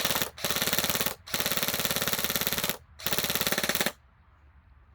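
ASG Scorpion Evo airsoft electric gun firing on fully automatic in four bursts of rapid clicking shots, the first very short and the next three longer, stopping about four seconds in.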